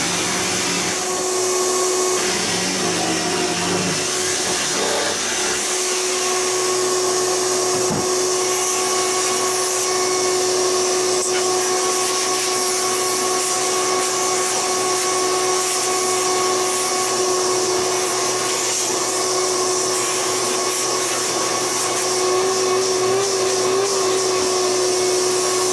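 Power tool running steadily while cutting fiberglass, a constant high whine over a bright hiss, its pitch wavering briefly near the end.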